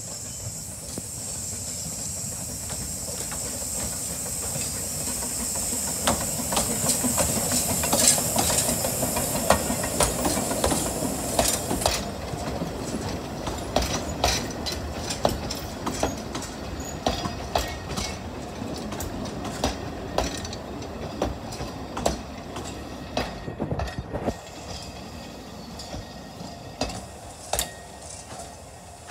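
Narrow-gauge steam locomotive Tom Rolt hauling its train past. A steady hiss of steam stops abruptly about twelve seconds in, then the carriages' wheels click over the rail joints as they roll by.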